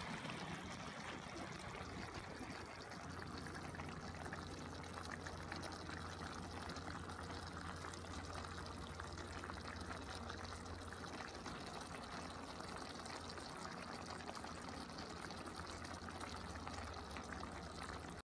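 Pot of fish pochero stew simmering, a faint, steady bubbling hiss of the tomato broth.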